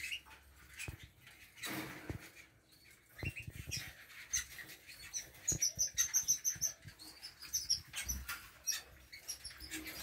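Caged canaries feeding: scattered sharp clicks of beaks pecking and cracking seed, with short high chirps and a quick run of high calls about halfway through.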